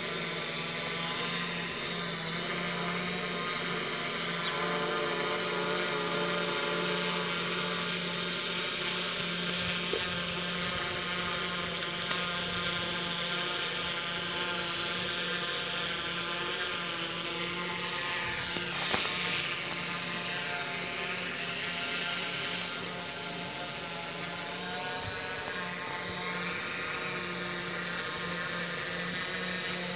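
F450 quadcopter's four brushless motors and propellers whining in flight, the pitch sliding up and down about halfway through and again near the end as the throttle changes.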